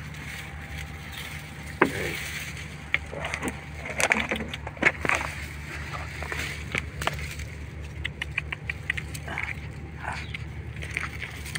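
Dry palm fronds rustling and crackling as they are pushed aside and handled, with sharp snaps scattered throughout, over a steady low hum.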